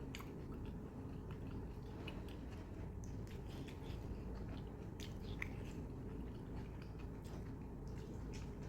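A person chewing a mouthful of a mutton curry meal close to the microphone: soft wet mouth sounds with scattered faint clicks over a steady low hum.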